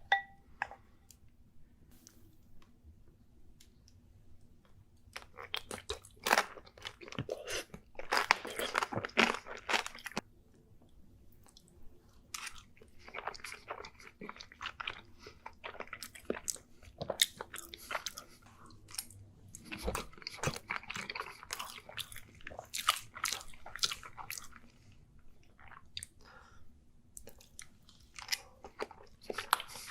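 Close-miked eating: crunchy bites and chewing in bursts of a second or two with short quieter pauses between them.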